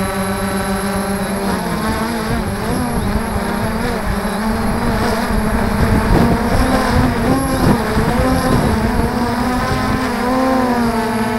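Quadcopter drone's electric motors and propellers whining as heard from its onboard camera. The hum holds a steady pitch at first; from about a second and a half in, the pitches waver up and down as the motors change speed during manoeuvring, settling back to a steady pitch near the end.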